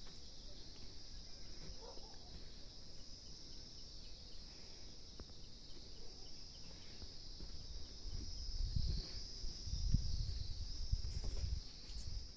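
Insects chirring in a steady high-pitched drone. In the second half there are low rumbles and thumps.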